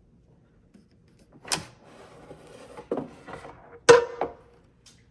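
Air fryer basket drawer being pulled open and handled: a click, a stretch of sliding and rattling with a knock, then two sharp clacks, the loudest about four seconds in.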